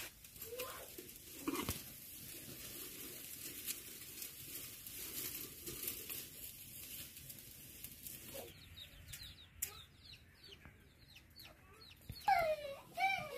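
A chicken calls loudly near the end, over small birds chirping in quick short notes from about two-thirds of the way in. A couple of light cracks come in the first couple of seconds.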